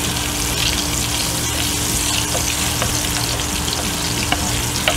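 Hot lard sizzling steadily in an enameled Dutch oven as a wooden spoon stirs it, with a few light clicks of the spoon against the pot near the end.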